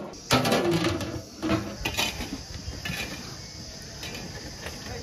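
Large steel dum lid of a biryani pot being handled: a few short metallic scrapes and grinds in the first two seconds, then a quieter steady background.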